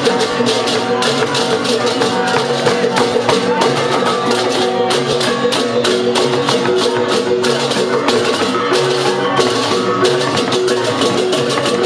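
Balinese baleganjur gamelan playing: a fast, dense run of percussion strokes over held ringing tones and drums, steady throughout.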